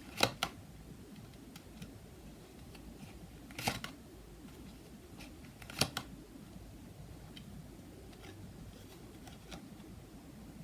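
Tarot cards being handled and laid on a table: a few short, sharp snaps, two close together right at the start, another about three and a half seconds in and one near six seconds, over faint room hiss.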